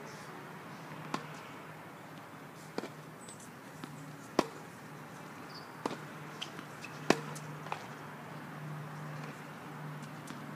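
Tennis balls struck by rackets and bouncing on a hard court: a string of sharp pocks at irregular intervals, the loudest about four and seven seconds in, over a faint steady low hum.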